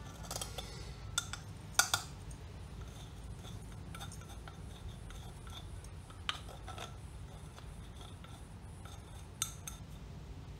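Steel spatula scraping against the inside walls of a glass beaker to loosen iodine crystals, with a few sharp metal-on-glass clinks, the loudest about two seconds in.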